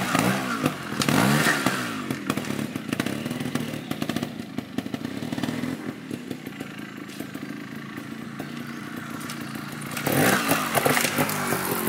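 Sherco ST 300 two-stroke trials motorcycle revved in quick blips that rise and fall as it rides over logs. It fades as the bike moves away and grows louder again about ten seconds in as it comes back.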